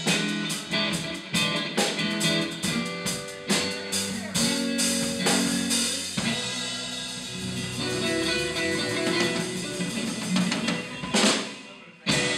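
Live rock band playing without vocals: drum kit, electric guitar and bass guitar. Busy drum hits for the first half, then held chords with sparser drums and a loud hit near the end.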